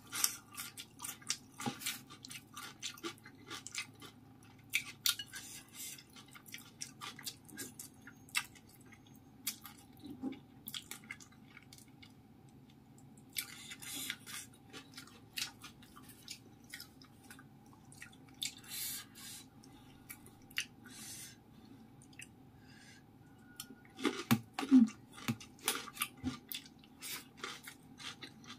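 Close-miked chewing and wet mouth sounds of someone eating steamed pomfret and rice by hand: many short clicks and lip smacks, with a louder run of smacks near the end. A faint steady hum sits underneath.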